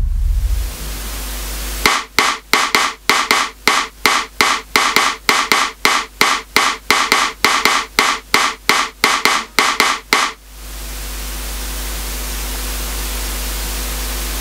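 NUX DM-1 electronic drum kit played through its sound module: after a fading wash, a cymbal sound is struck in an even, steady run of about 25 hits, roughly three a second, for some eight seconds. A steady noisy wash follows for the last few seconds.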